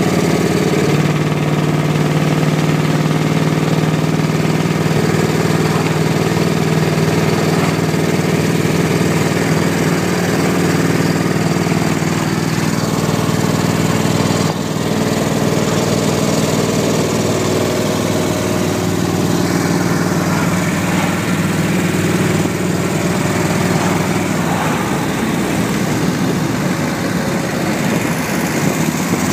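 1931 BSA three-wheeler's V-twin engine running steadily as the car drives along.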